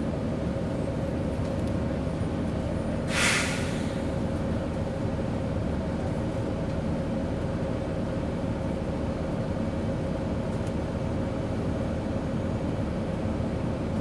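A 2011 Gillig Low Floor bus's Cummins ISL diesel engine running steadily, with a constant whine over the low rumble. About three seconds in, a short loud hiss of air is released from the bus's air system.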